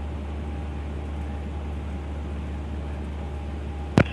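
A Cessna 150's four-cylinder Continental O-200 engine and propeller droning steadily in the cabin at the low power set for slow flight. One sharp click comes near the end.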